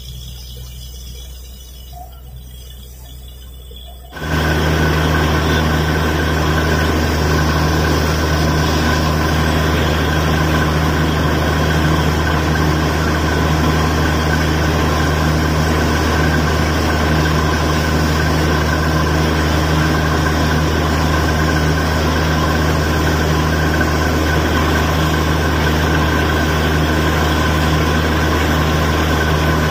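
Borewell drilling rig's engine running steadily with water and air blowing out of the borehole. It starts much louder, suddenly, about four seconds in, after a quieter rush.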